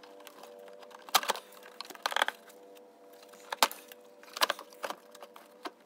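Hard plastic A/C evaporator housing being pulled and worked by hand, giving a few sharp cracks and knocks, the loudest about a second in, around two seconds in, and near three and a half seconds.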